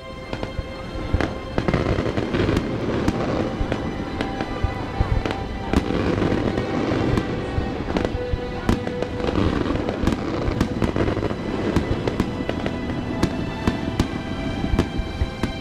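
Aerial firework shells bursting: a dense run of crackling, with sharp bangs coming once or twice a second.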